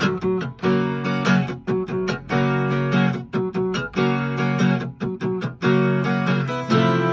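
Two acoustic guitars playing an instrumental passage: strummed chords in a choppy, stop-start rhythm, each chord cut off short before the next.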